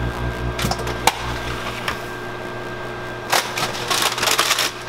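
Plastic food containers handled and set down on a granite countertop: a few light knocks, then a cluster of clicks and rustling from about three and a half seconds in, over a steady low hum.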